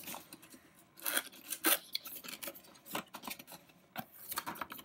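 Cardboard box being opened by hand: the lid's tuck tab scraping and sliding out of its slot, with short irregular rustles and scrapes of cardboard.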